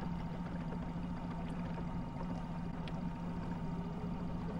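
Small boat's motor running steadily at low speed, an even hum that holds one pitch, over a low rumble of water and hull.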